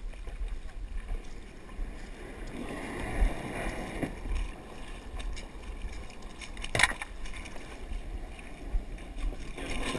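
Shallow water splashing and sloshing as a person wades and pulls a plastic kayak toward shore by its rope, with one sharp knock about seven seconds in.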